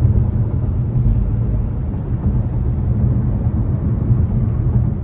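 Steady low rumble inside a car's cabin while driving, the road and engine noise of the moving car.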